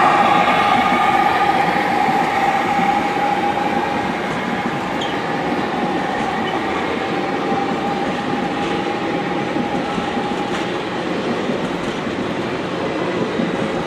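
HO scale model train rolling past on the track: a steady whine from the diesel locomotives, loudest at the start and fading as they move off, over the continuous rolling noise of the passenger cars' wheels on the rails, with faint ticks.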